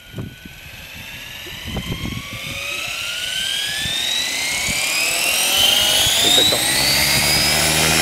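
GAUI Hurricane 550 electric RC helicopter spooling up on its Z-power 1470kv brushless motor: the motor and gear whine rises steadily in pitch and grows louder as the rotor head speeds up. A few low knocks come in the first two seconds, and a steady low rotor hum joins near the end as it nears lift-off.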